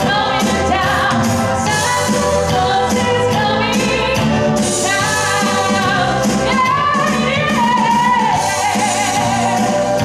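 A woman singing into a microphone over a pop backing track, with a steady beat throughout.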